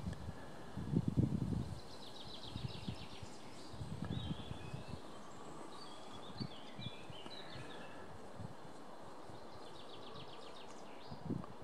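Small songbirds singing, with repeated rapid trills and short chirping phrases over a steady faint outdoor hiss. Low rumbling noise in the first two seconds and again about four seconds in.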